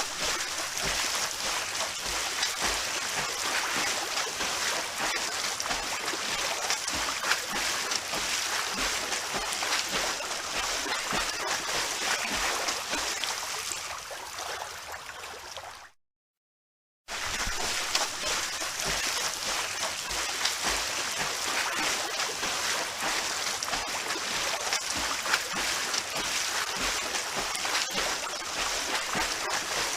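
Swimming-pool water splashing and sloshing in a continuous wash of small splashes. The sound fades out about two thirds of the way through, cuts to a second of silence, then comes back abruptly.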